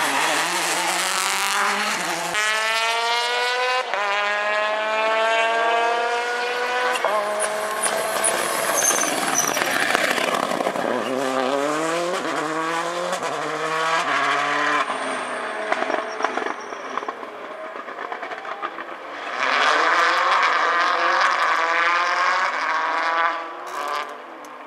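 Subaru Impreza WRC rally cars' turbocharged flat-four engines at full throttle. The engine note climbs through about four quick upshifts, then drops in steps as the car brakes and downshifts. Near the end a second car goes by loudly.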